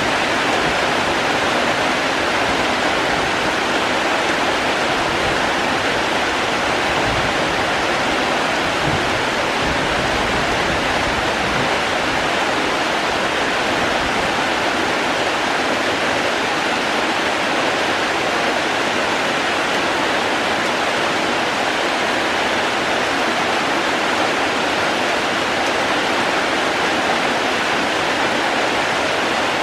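Steady, even rush of falling water, with a low rumble underneath that thins out about halfway through.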